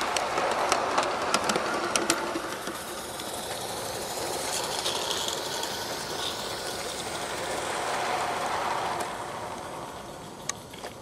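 Live-steam G-scale model train running on garden track: quick clicks of the wagon wheels over the rail joints in the first two seconds, then a steady rushing sound as the train runs on, fading near the end.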